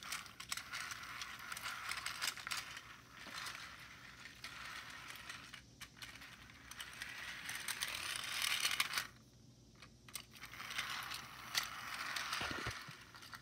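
Battery-powered toy R160 subway train's small motor and plastic gears whirring with a fast clicking rattle. It cuts out for about a second around nine seconds in, then runs again and stops shortly before the end.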